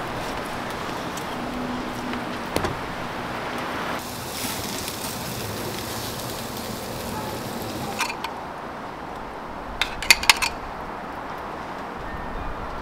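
Cooking over an oak-ember fire: a steady sizzling hiss, brighter for a few seconds in the middle, broken by sharp metallic clicks, one a few seconds in and a quick run of about five near the ten-second mark.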